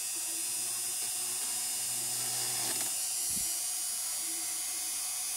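Dremel rotary tool running at high speed, its bit drilling a screw hole through a perforated protoboard: a steady, high-pitched whine.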